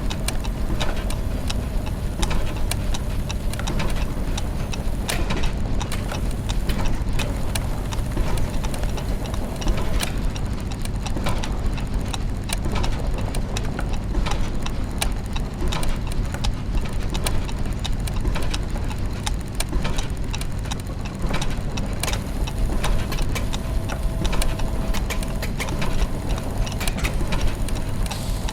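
Clockwork machinery: a dense mix of ticking, clicking gears and ratchets over a steady low mechanical rumble and hum.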